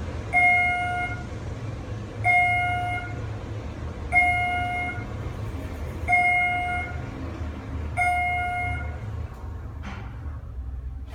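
An electronic beeper sounding five identical steady tones, each just under a second long, about two seconds apart.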